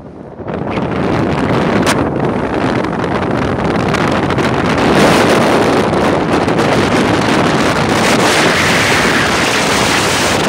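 Wind blowing hard across the phone's microphone on a snowy mountaintop, a loud steady rush that swells about half a second in and cuts off suddenly at the end.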